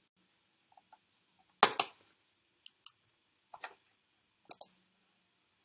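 A handful of short, sharp clicks with quiet between them: a loud double click about one and a half seconds in, then several fainter ticks.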